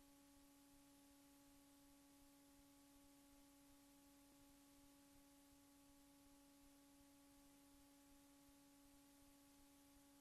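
Near silence, with a faint steady hum.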